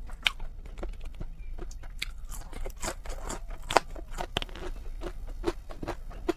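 Close-miked eating sounds: a person chewing food with irregular crunchy clicks and wet mouth smacks.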